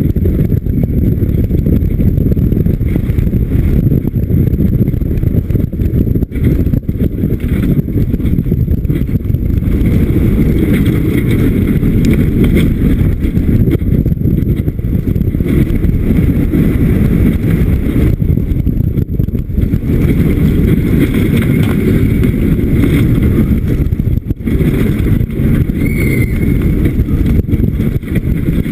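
Vekoma motorbike coaster train running along its track at speed, a continuous loud rumble mixed with wind buffeting the onboard camera's microphone.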